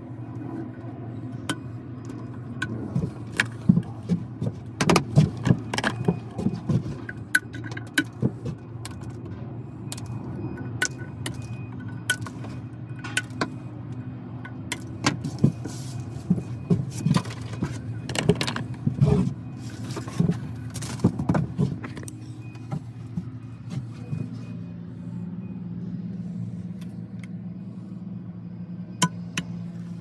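Clicks, knocks and rattles of plastic splice-closure parts and trays being handled and set down on a bench, in clusters through the first third and the middle, over a steady low hum.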